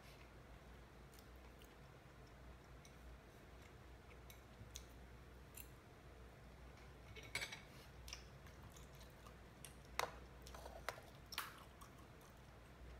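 A man eating with a fork from a china plate: quiet chewing, with a few sharp clicks of the fork against the plate about seven seconds in and again around ten to eleven seconds in.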